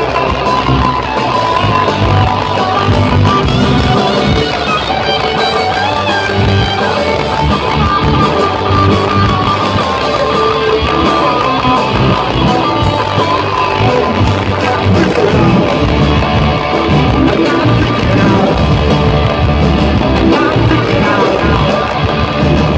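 Live rock band playing loud through a concert PA: electric guitars, bass guitar and drums, with an electric guitar carrying a wavering lead line on top.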